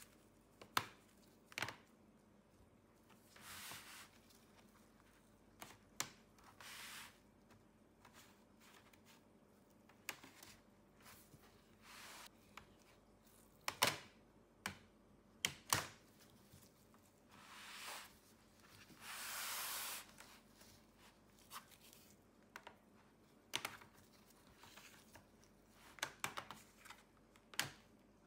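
Bottom-cover clips of an ASUS ROG Strix G18 laptop popping loose as a thin plastic pry tool is worked along the seam. Scattered sharp clicks, with a few short scraping swishes of plastic on plastic; the longest scrape lasts nearly two seconds, a little past the middle.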